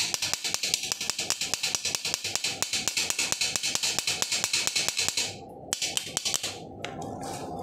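Rapid, even strokes of a hand tool working over a fresh stick weld on a steel frame, about seven a second: the slag being cleaned off the bead. The strokes stop about five seconds in, and a few scattered taps follow.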